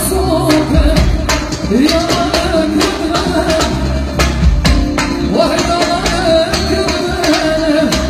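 Live band music led by a child drummer on a full acoustic drum kit, with steady drum and cymbal hits, under amplified singing.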